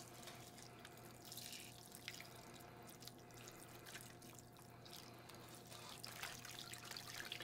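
Faint trickle of thin, hot brown-sugar sauce pouring from a glass measuring cup onto dough in a parchment-lined baking pan.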